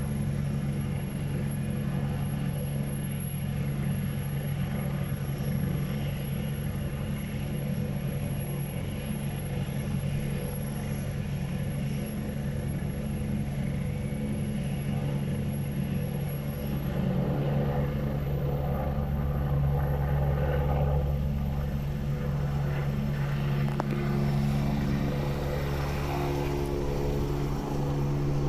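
Air ambulance helicopter running with its rotor turning, a steady high turbine whine over a low rotor rumble. About two-thirds of the way through the whine rises and the low rumble grows louder as it powers up and lifts off, and it ends climbing overhead.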